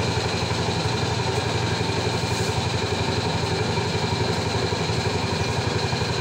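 An engine running steadily at idle, with a fast even low pulse.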